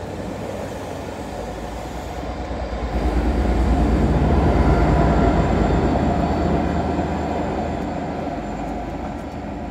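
Passenger train of coaches rolling past on the track, followed by the tailing Class 57 diesel locomotive, its EMD two-stroke V12 engine running as it passes. The rumble swells about three seconds in, is loudest around the middle and fades as the locomotive draws away.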